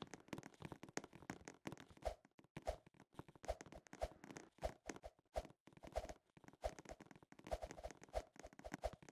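A faint string of irregular soft clicks and taps, several a second.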